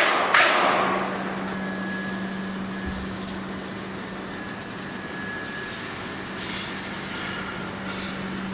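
Two loud metallic clanks right at the start, the second ringing out briefly, then a steady machine hum with a low drone from submerged arc welding equipment.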